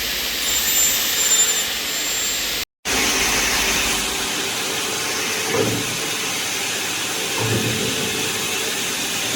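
Aluminum profile sawing, drilling and milling machine running, a steady hissing machine noise. The sound drops out for a moment just under three seconds in, then carries on with a few faint low knocks.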